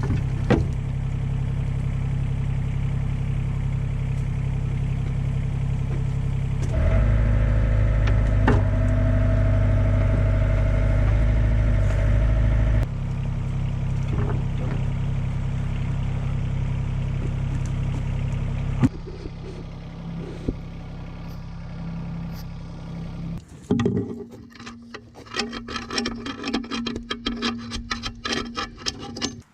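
Excavator diesel engine running steadily, then revving up harder for about six seconds, beginning about seven seconds in, before settling back. Near the end the engine gives way to a quieter run of clicks and rattles.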